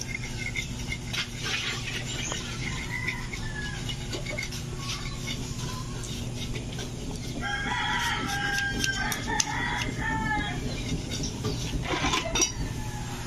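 A rooster crows once, a long call of about three seconds starting about seven and a half seconds in. Under it are scattered light scraping and rubbing sounds as hair is worked off a scalded pig's skin by hand.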